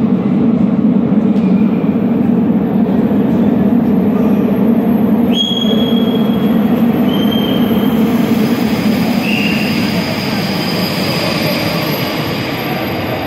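Metro train running in the underground station: a steady low rumble with several short high-pitched wheel squeals about halfway through, easing off slightly toward the end.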